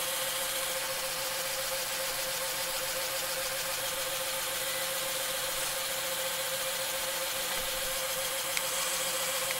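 Small electric motors and pneumatic pumps of a Mould King 19002 brick-built crane truck running with a steady, even whine while the crane boom is pneumatically retracted.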